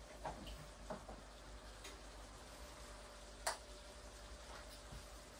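Quiet kitchen: a few light clicks and taps from items being handled, the sharpest about three and a half seconds in, over a faint steady hum.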